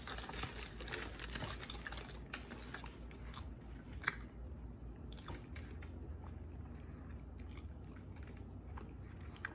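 A person chewing a mouthful of food close to the microphone: quick wet clicks and smacks of the mouth, thick at first and then more spaced out.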